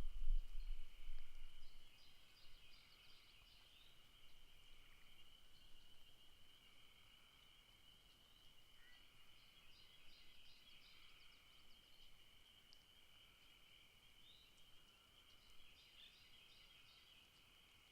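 Night chorus of frogs and insects, which the recordist takes for crickets and frogs: a steady high trill with weaker trills below it, and clusters of faster, higher pulsed calls every few seconds. A low rumble is heard in the first second or two.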